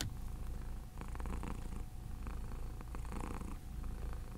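A domestic cat purring steadily close to the microphone, a low pulsing rumble, with a few faint clicks over it.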